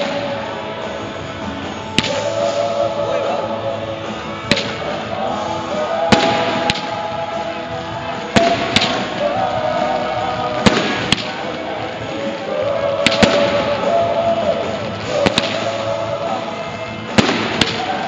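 Aerial fireworks shells bursting with sharp bangs every second or two, some in quick pairs, over music with singing.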